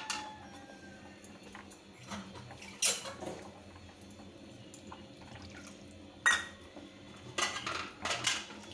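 A cooking spoon clinking against a pan of watery curry gravy as it is stirred: single sharp clinks every few seconds, then a quick cluster of clatters near the end.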